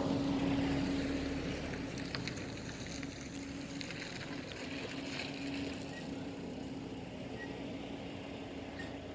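A motor running steadily in the background, a constant low hum that slowly fades.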